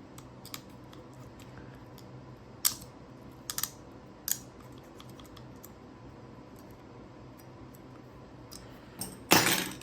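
Light clicks and taps of the small plastic parts of an opened Volkswagen key fob being handled, a few scattered through the first half, then a louder scraping rustle lasting about half a second near the end.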